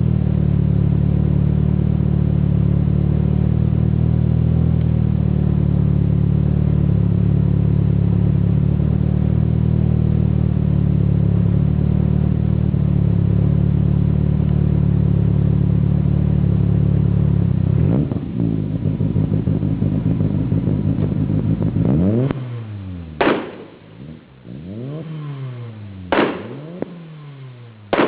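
Turbocharged Mitsubishi Lancer Evolution VIII MR four-cylinder engine with anti-lag engaged, running steadily at idle. The sound changes about 18 seconds in, and from about 22 seconds the throttle is blipped four times, the revs shooting up and dropping back each time.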